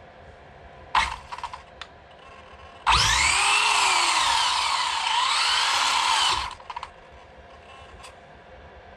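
Traxxas Drag Slash's Velineon brushless electric motor revved up and down twice: a loud whine that rises and falls in pitch for about three and a half seconds, after a few sharp clicks about a second in.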